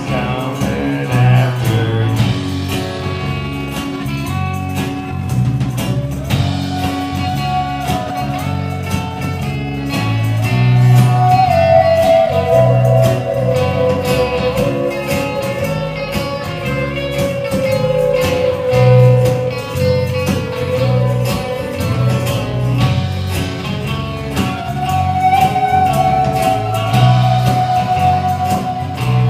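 Live band playing an instrumental stretch of a bluesy rock song: strummed acoustic guitar, electric guitar, bass and drums keeping a steady beat. A lead line holds long, sliding notes.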